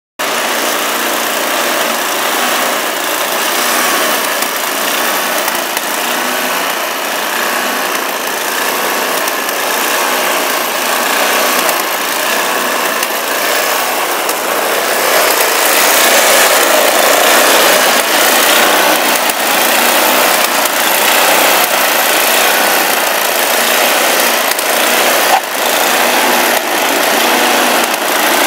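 Gasoline two-stage snowblower running steadily under load as it clears snow, its engine and auger working continuously; it gets somewhat louder about halfway through.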